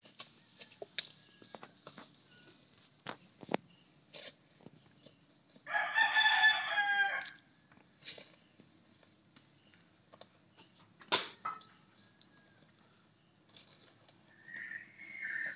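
A rooster crows once, about six seconds in, and it is the loudest sound. A steady high drone of insects runs underneath, with scattered snaps and rustles of grass as a carabao tears at it while grazing.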